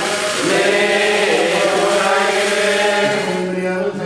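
Syriac Orthodox-style liturgical chant sung in held, drawn-out notes, the chanting that leads into the Gospel reading. About three seconds in it settles onto one long steady note.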